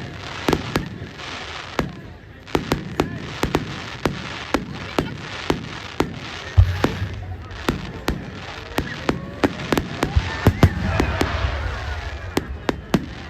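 Fireworks display: a rapid, irregular string of sharp cracks and bangs, with a deep boom about six and a half seconds in and a denser, louder volley around ten seconds in.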